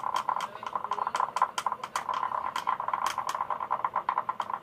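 Slime being stirred in a bowl with a pencil: a quick, uneven run of wet clicks and squelches, several a second.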